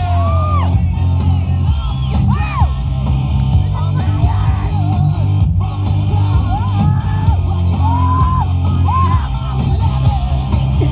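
Loud rock music with a steady bass line and a voice singing in sliding phrases.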